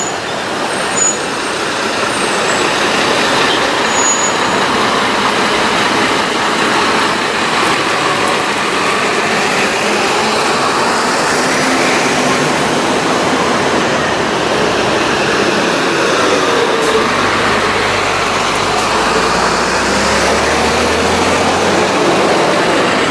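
City buses and traffic running along a street: steady engine and road noise, with a heavier engine drawing close in the last few seconds.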